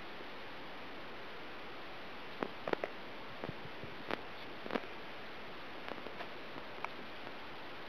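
Quiet room tone with a steady hiss, broken by a handful of faint short clicks and taps spread through the middle seconds.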